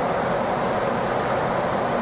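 Steady, even rushing machine noise, such as laboratory apparatus or its ventilation gives off, holding level without change.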